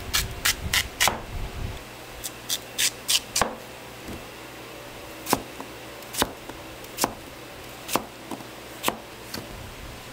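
A knife chopping on a wooden cutting board as food is prepared. It makes sharp single strikes: a quick run of about four in the first second, a few more a little later, then a slower, steady stroke about once a second.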